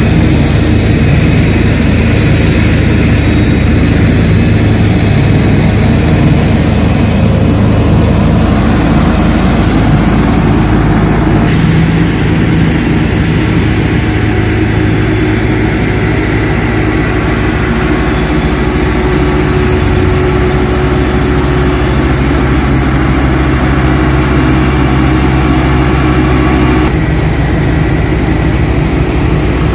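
Engines of heavy road-repair machinery running steadily, a low engine hum whose note changes abruptly a few times.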